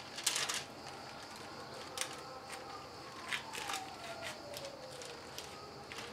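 Metal spoon scraping and tapping in short, scattered strokes as batter is spread over parchment paper on a baking tray. A faint siren glides slowly down in pitch in the background.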